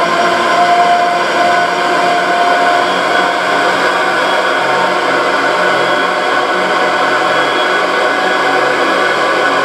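Dense drone music: many layered sustained tones held steady over a thick hiss-like noise, with a low pulsing hum underneath and no beat or pauses.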